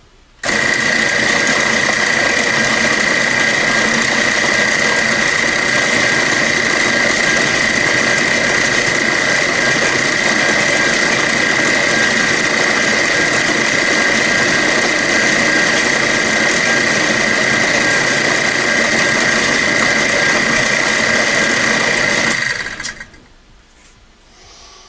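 Milling machine spindle switching on suddenly and running steadily with a constant high whine as it drills the guide hole in an AR-15 lower receiver. It shuts off and spins down near the end.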